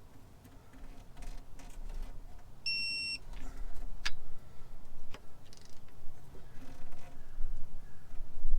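Electronic torque wrench giving one short high beep about three seconds in, the signal that the bolt has reached the set 40 foot-pounds, with a few light metal clicks and knocks from the wrench work around it.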